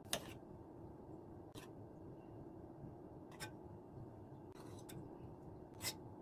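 A spoon scooping and spreading thick tiramisu cream, clinking and scraping against the metal mixing bowl and glass dish with about five short sharp clicks, over a faint steady room hum.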